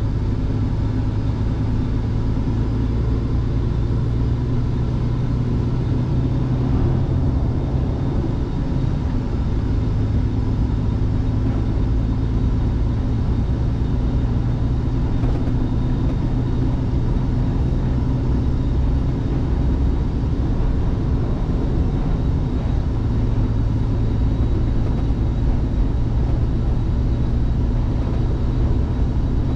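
Scania truck's diesel engine running steadily at highway cruising speed with road noise, heard from inside the cab as an even low hum.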